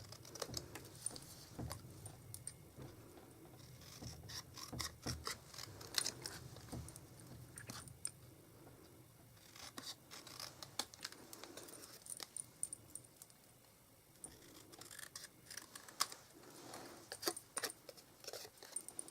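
Scissors cutting around a small stamped piece of cardstock: faint, irregular snips and clicks with light paper rustle.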